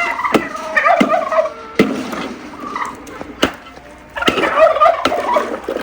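Turkeys gobbling in bursts of rapid warbling calls, with a lull in the middle. A few sharp knocks sound between the calls.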